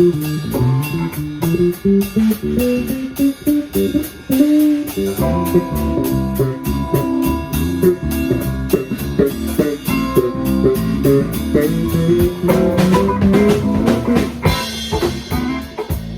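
Funk band music: an electric guitar line over bass guitar and drum kit playing a steady beat, with cymbals near the end.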